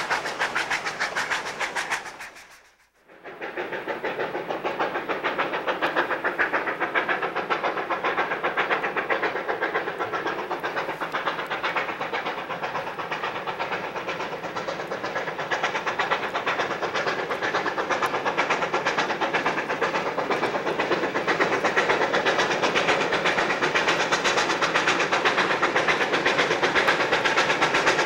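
Sierra Railway No. 28, a Baldwin 2-8-0 steam locomotive, working hard with a fast, steady exhaust beat, growing louder as it approaches. The sound drops out briefly about three seconds in.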